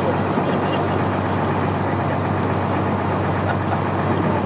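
Motorboat engine running steadily, a low, even drone with a constant hum.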